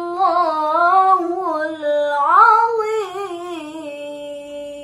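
Melodic Qur'an recitation (tilawah) in a young woman's voice: an ornamented phrase that sweeps up in pitch about two seconds in, then settles into a long held note.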